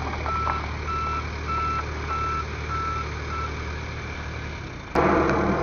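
Backhoe's reverse alarm beeping steadily, about one beep every 0.6 seconds, over the steady low running of its diesel engine; the beeping stops about three and a half seconds in. About five seconds in, the engine noise jumps suddenly much louder.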